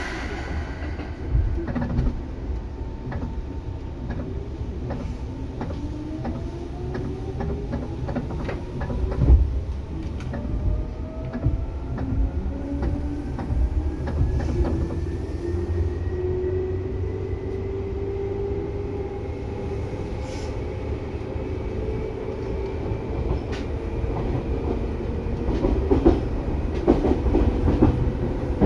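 Seibu 2000 series electric train heard from inside the car as it accelerates. The traction motor whine rises steadily in pitch for about fifteen seconds and then levels off, over low running rumble. The wheels click over rail joints, more densely near the end.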